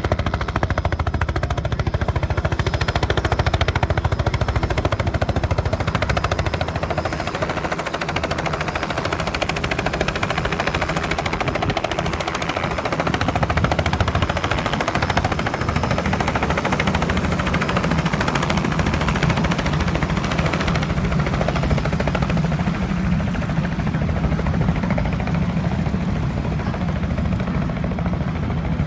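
Helicopter flying low overhead, its rotor making a steady, rapid chopping.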